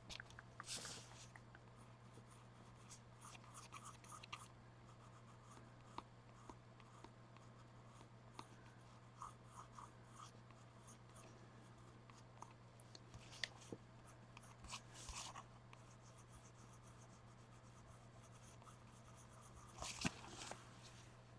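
Faint scratching of a colouring tool stroked across paper, in several short spells with a few light clicks in between, over a steady low hum.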